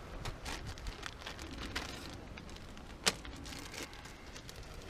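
Clear plastic packet of mackerel feathers crinkling and rustling in the hands as it is handled and opened, with one sharp crackle about three seconds in.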